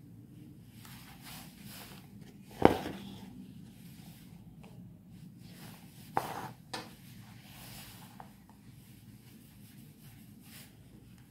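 Faint rustling of embroidery thread being drawn through fabric stretched in a hoop, over a low steady background. A sharp knock sounds about two and a half seconds in, and two smaller knocks about six seconds in.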